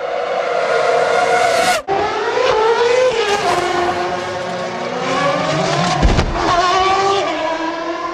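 Formula One car's V8 engine at high revs, its note rising and then stepping down in pitch. About six seconds in there is a short, heavy thump of the car striking the barrier.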